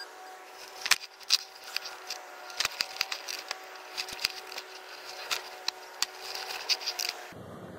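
Digging shovel blade chopping and scraping into packed soil, with irregular sharp scrapes and knocks as clods are loosened and lifted out of the hole; it stops abruptly near the end.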